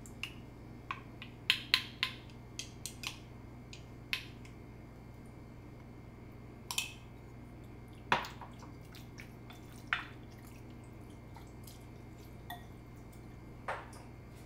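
Irregular sharp taps and clinks of a spoon and a glass jug against a glass mixing bowl while chicken is mixed in its marinade.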